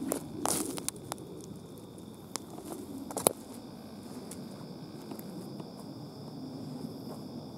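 A hiker's footsteps on the forest floor, with a few sharp crackles and snaps of dry twigs in the first half, the loudest a little over three seconds in. After that there is only a faint steady high hum.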